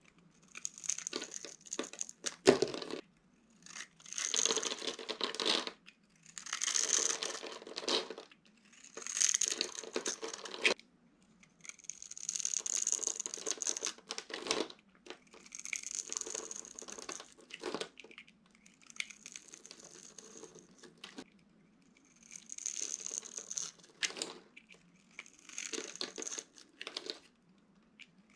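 Dry soap cubes being crushed by hand, crunching and crumbling in repeated bursts of a second or two each, with sharp cracks among them.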